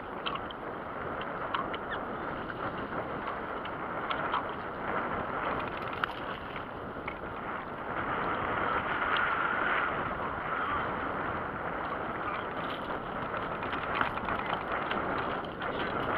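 Steady wind noise and choppy water slapping against an aluminum boat hull, with scattered light ticks.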